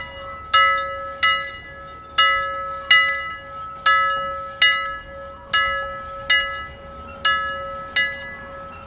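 A single church bell pealing, struck about eleven times. The strikes fall in uneven pairs, roughly one pair every second and a half. Each strike rings out and decays, and the bell's low hum sounds on steadily between strikes.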